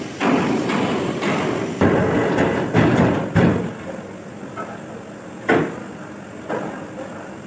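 Metal clanking and knocking as a heavy cast engine housing hanging from a chain hoist is moved and fitted against an engine block: a busy clatter of strikes over the first three and a half seconds, then two single knocks later on.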